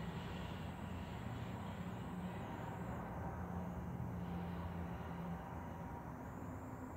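Steady low mechanical hum over a faint even background noise, with no distinct events.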